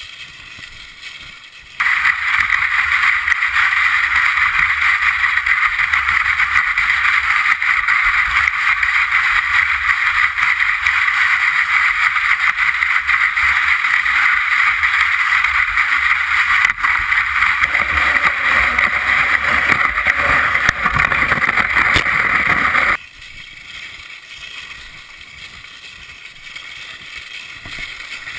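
Loud, steady hiss of cross-country skis sliding fast over snow, with a low rumble underneath. It starts abruptly about two seconds in and cuts off sharply near the end, leaving a quieter sliding noise either side.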